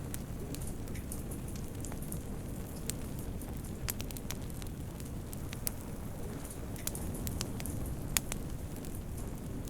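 Wood fire burning in a fireplace: a steady low rush with scattered sharp crackles and pops, the loudest pop near the end.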